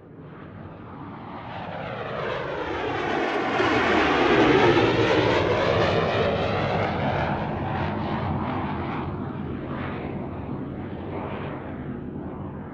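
An airplane flying past: its engine noise swells to a peak about four seconds in, with sweeping shifts in pitch, then slowly fades away.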